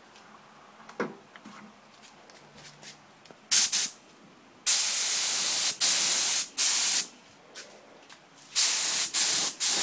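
Spray paint hissing in short bursts with sharp starts and stops: a brief one about three and a half seconds in, a longer run of three just after, and another near the end. A small knock about a second in.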